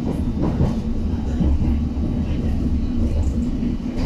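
Steady low rumble of a London Underground District Line train running along the track, heard from inside the carriage.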